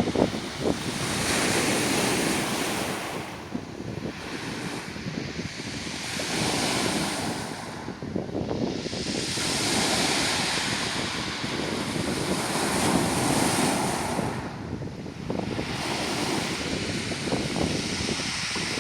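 Waves breaking and washing over a beach of round pebbles, surging in every few seconds, with a dense crackling rattle of stones under each wash.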